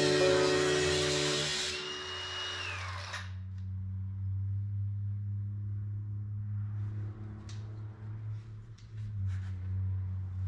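Background music that stops about three seconds in, followed by a low steady hum with a few faint clicks.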